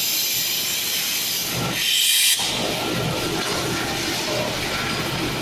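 Horizontal double-ended drum seamer running as it seams the ends onto a 20–35 litre steel drum, a steady mechanical running noise from the machine. A loud burst of compressed-air hiss from its pneumatic cylinders comes about two seconds in.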